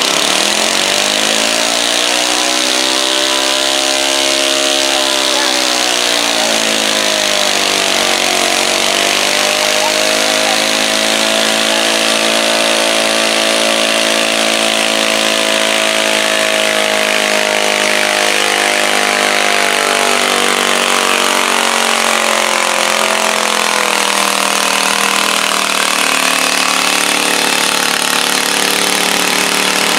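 Modified pulling garden tractor engine running at high revs under load as it drags the weight-transfer sled down the track. The revs climb at the start, dip briefly, then hold high before sagging in the last third.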